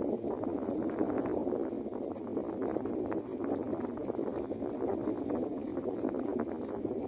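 Strong wind blowing: a dense, crackling rustle that swells and eases slightly, as of gusts through foliage and against the microphone.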